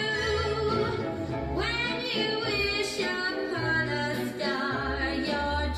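Music: a woman singing held notes with vibrato over instrumental backing with a steady bass, from an early-1960s pop recording.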